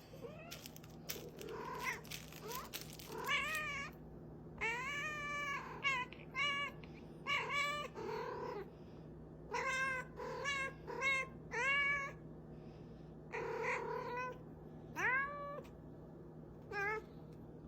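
A cat meowing over and over: a long string of short meows, each rising then falling in pitch, with a few sharp clicks in the first couple of seconds.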